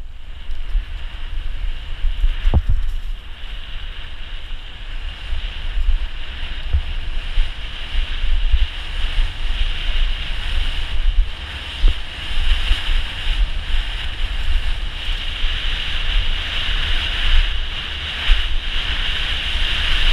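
Wind buffeting the microphone of a helmet-mounted camera on a downhill mountain bike rolling down a dirt track, with tyre noise and a steady high hiss. A sharp knock comes about two and a half seconds in, with a few smaller bumps later.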